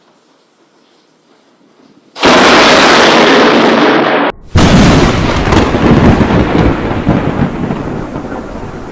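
Thunder from a close lightning strike: after about two quiet seconds, a sudden very loud thunderclap breaks in. It cuts out for a moment, then rolls on and slowly fades.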